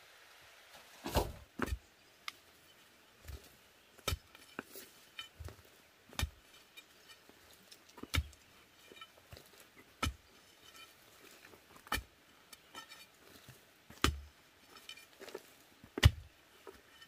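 A long metal digging bar jabbed into the ground to loosen soil, striking about once every two seconds with sharp thuds, and lighter knocks and clinks of loosened earth and stones in between. The strikes begin about a second in.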